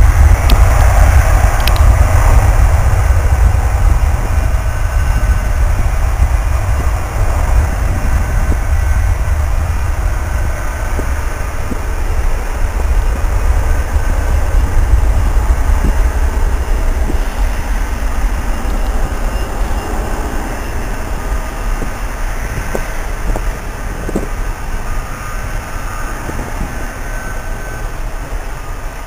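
Twin Pratt & Whitney jet engines of an Airbus A330-300 at takeoff power: a deep, steady roar that fades slowly as the airliner rolls down the runway and climbs away.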